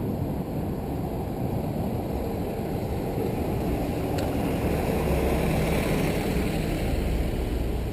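Wind rumbling on a bike-mounted action camera's microphone as the bicycle rolls along, with a city bus engine running at the curb; its low hum grows louder about two-thirds of the way in as the bike passes the bus.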